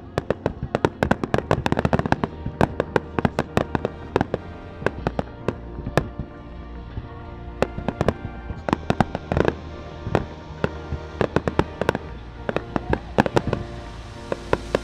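A fireworks display: many shells bursting in quick succession with crackling, the bangs thickest in the first few seconds and again near the end, over music playing throughout.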